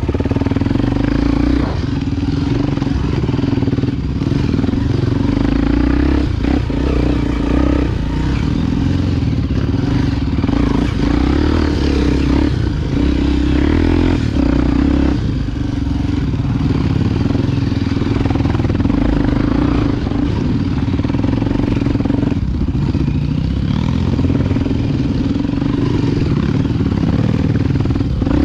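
Honda XR Tornado single-cylinder four-stroke enduro motorcycle engine running steadily under load while riding off-road, with scattered knocks and clatter from the bike over rough ground.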